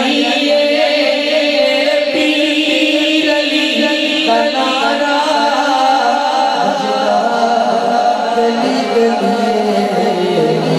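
A man singing a Punjabi naat, a devotional poem in praise of Ali, into a microphone, his voice sliding and holding long notes.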